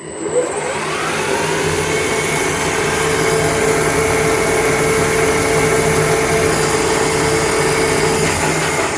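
Turret lathe spindle, driven by its motor through a frequency inverter, spinning up with a rising whine over the first second or two. It then runs steadily at its top speed of about 3,500 rpm.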